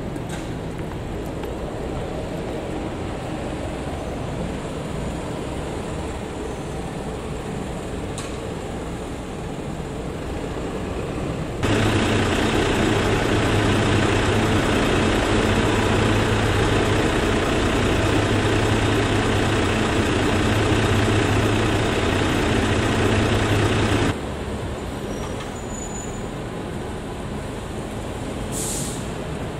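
Road traffic at a city intersection, vehicles running steadily. About twelve seconds in a louder, steady low engine rumble starts suddenly and cuts off just as suddenly some twelve seconds later; near the end there is a short hiss.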